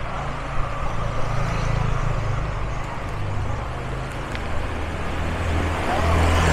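Motorbike engine running over street traffic and road noise; its note shifts a few times and swells louder near the end.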